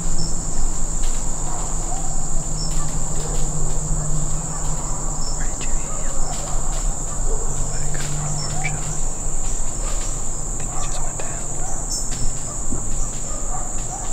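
Steady high-pitched buzzing drone of insects in the woods, with a low hum underneath that fades about nine seconds in and a few faint clicks and rustles.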